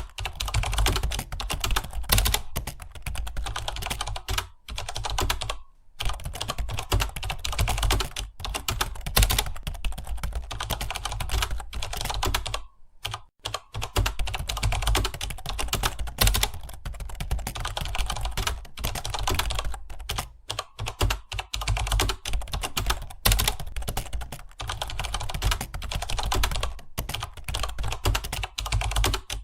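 Fast, continuous typing on a computer keyboard, a dense run of keystroke clicks that stops briefly about six seconds in and again about thirteen seconds in.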